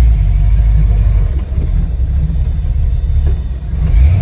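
Fox-body Ford Mustang's carbureted engine running with a deep, steady low rumble, dipping briefly in the middle and swelling again near the end.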